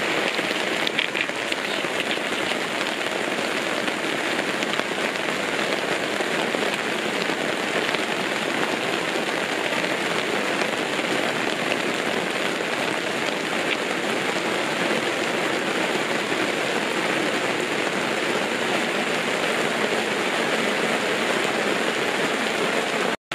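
Heavy rain falling steadily, an even hiss of drops that cuts off abruptly near the end.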